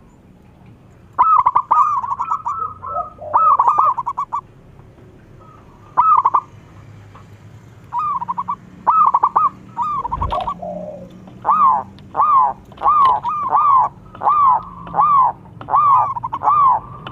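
Zebra dove (perkutut) cooing. About a second in come clusters of rapid staccato notes. In the second half these settle into an even run of single arched coos, about one and a half a second, while the bird bows with its tail fanned. A brief low thump comes about ten seconds in.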